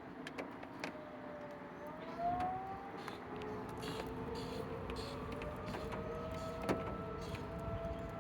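ACA P-15 outdoor warning siren sounding, its tones gliding slowly upward. A few short clicks from the surroundings are also heard.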